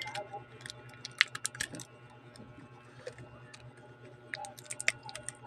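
Small sharp clicks and taps of tools and plastic parts being handled during a smartphone screen repair, in two brief clusters, over a steady low electrical hum.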